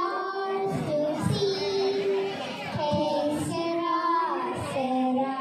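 Two young girls singing a song into handheld microphones, holding some notes for about a second.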